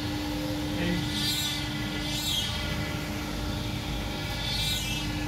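CNC wood router running: a steady hum under a high, whining machine tone that rises and falls three times as the machine works.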